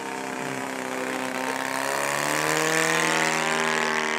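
Giant-scale RC Cessna 182 model's 85 cc four-stroke engine running steadily as the plane flies overhead, growing louder to a peak about three seconds in, then starting to fade.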